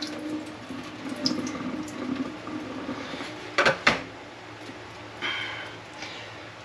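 Soaking water being poured off chunks of redfish fillet in a bowl, trickling and splashing. There are two sharp knocks close together about three and a half seconds in.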